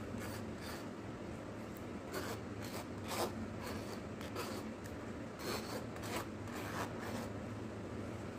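Irregular short scraping and rubbing strokes over a steady low hum, loudest about three seconds in and again around the sixth second.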